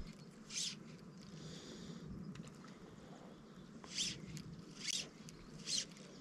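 Fly line being stripped in through the rod guides in short pulls, each a brief hiss: one about half a second in, then three quick strips close together near the end. This is the pull-and-pause retrieve of a popper fly.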